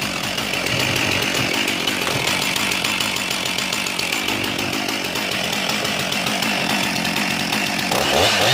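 Stihl MS 362 two-stroke chainsaw engine running steadily, with a quick rev up and back down near the end.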